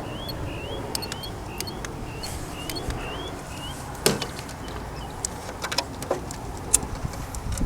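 A small bird chirping over and over, short rising notes about three a second, which stop a little past the halfway mark. Then comes a single knock, followed by a few scattered clicks.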